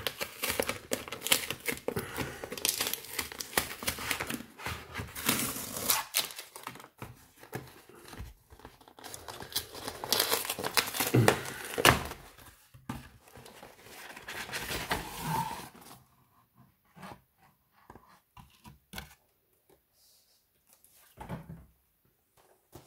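Cardboard shipping box being torn open by hand, a strip of cardboard ripped away, with tearing and crinkling of the cardboard. The handling grows quieter about two-thirds of the way through, leaving only a few soft knocks and rustles.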